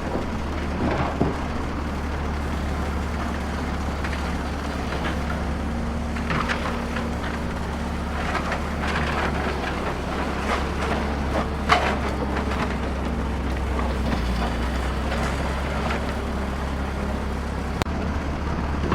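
Steady low engine rumble of heavy digging machinery, with irregular clattering and crunching of rock and soil being dug and dropped.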